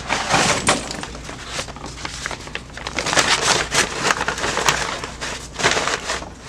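Irregular rustling, crackling and knocking of things being handled and moved about, in uneven bursts.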